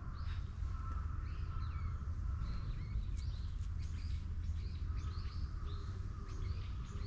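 Small birds chirping: many short, quick calls repeating throughout, over a steady low rumble of outdoor background noise.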